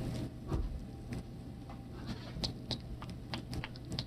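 Homemade slime being squished and poked by hand, giving scattered small sticky clicks and pops.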